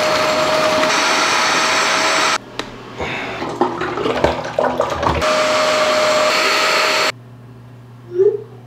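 Portable carpet spot cleaner's suction motor running with a steady whine as it sucks floodwater out of soaked carpet, stopping about two and a half seconds in. Then clatter and water splashing as its tank is emptied, and the motor runs again from about five seconds to about seven.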